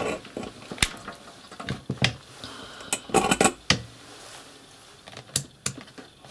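Irregular sharp clicks and knocks of a digital multimeter being handled, set down on the bench and its rotary dial clicked round to switch it on, with a tight cluster of clicks about three seconds in.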